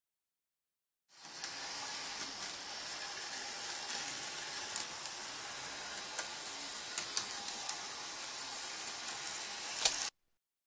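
Small model tram running on a circular model track: a steady hissing whir of motor and wheels with a few sharp clicks, the loudest just before it cuts off. It starts about a second in.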